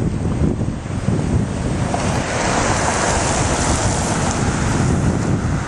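Severe thunderstorm wind gusting hard and buffeting the microphone with a low rumble. A broad hissing rush of wind swells in about two seconds in and holds.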